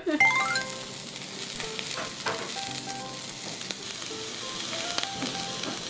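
Omi beef searing on a hot cooking stone (ishiyaki): a steady sizzle.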